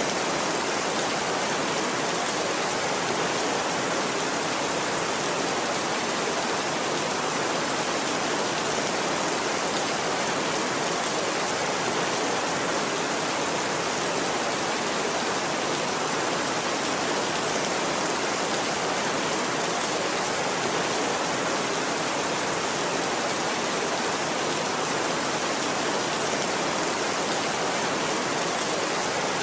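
Rain falling steadily, an even, unbroken hiss with no thunderclaps.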